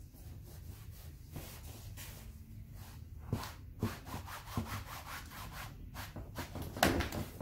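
Paper towel rubbed and dabbed against watercolour paper in a series of irregular short scuffing strokes, with one louder stroke near the end. The towel is lifting still-damp white paint off the painting.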